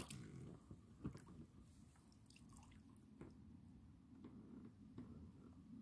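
Near silence over water, with a few faint drips, the clearest about a second in.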